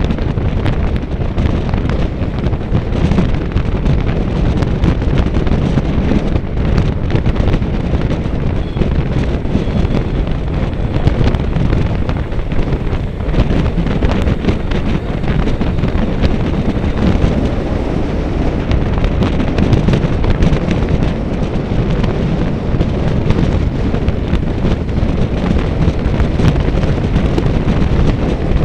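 Strong wind buffeting the microphone: a steady, rough low rumble with no letup.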